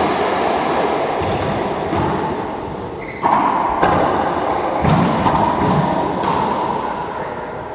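Racquetball rally: the rubber ball smacking off racquets, the walls and the hardwood floor, about nine sharp hits over six seconds, each ringing out in the echoing court, trailing off near the end.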